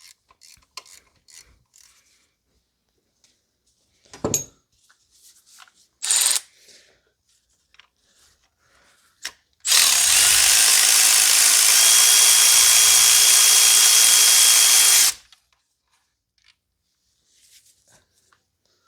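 Quiet ratchet clicking at the start. About ten seconds in, a power tool runs steadily for about five seconds and cuts off sharply, while spark plugs are being removed from the engine.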